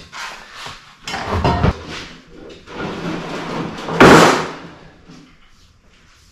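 Knocks and clatter of things being handled and set down, then one loud bang about four seconds in that dies away over about a second.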